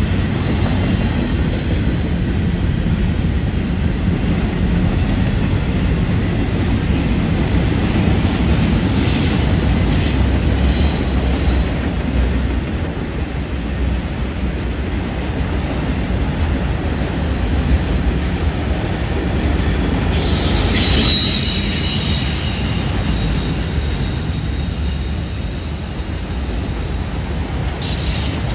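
Freight cars of a passing train rolling by on a curve, with a loud steady rumble of wheels on rail. High-pitched wheel squeal from the curve flares up about ten seconds in and again a little after twenty seconds.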